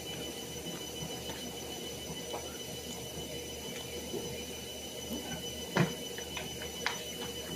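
A steady high-pitched electrical whine over a low hum, with a few faint clicks and two small knocks in the second half.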